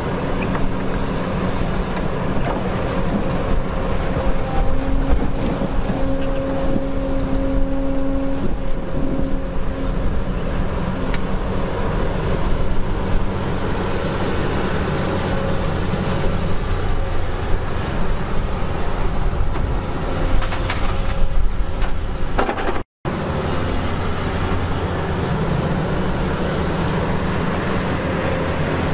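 Diesel engines of a crawler excavator and dump trucks running steadily, the note shifting in pitch as the machines work, with a few knocks a little past twenty seconds in.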